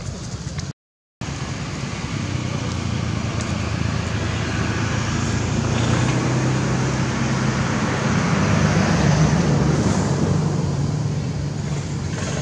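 Road traffic noise: a motor vehicle's engine running with a low hum, growing louder through the middle and easing off near the end. The sound cuts out completely for a moment about a second in.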